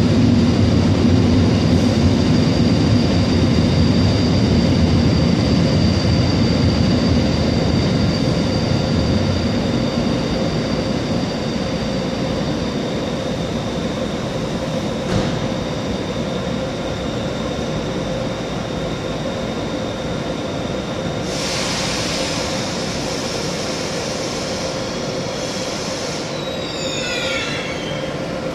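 ÖBB class 1116 Taurus electric locomotive running at a platform: a steady hum with a high, even whine from its electrical equipment over a low rumble that fades off. A burst of hiss comes about three-quarters of the way through, then a few short gliding squeals near the end.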